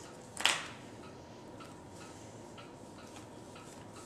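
A sharp click about half a second in, then a few faint ticks: sleeved trading cards being handled and laid down on a playmat.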